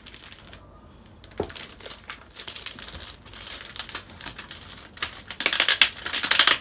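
Hands handling a sealed laptop retail box: a few light taps and scrapes against the box, then louder rustling and scraping from about five seconds in as she picks at its edges trying to open it.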